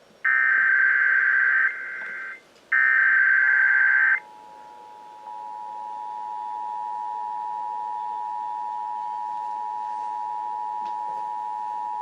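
NOAA Weather Radio emergency alert: short bursts of warbling digital SAME header data, then the steady 1050 Hz warning alarm tone. The tone starts about four seconds in, faint at first and louder from about five seconds. The alert announces a severe thunderstorm warning.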